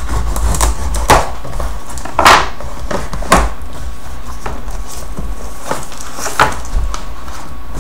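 Cardboard packaging of a laptop box being handled and opened: a few short scrapes and knocks, the loudest and longest about two seconds in, over a steady low hum.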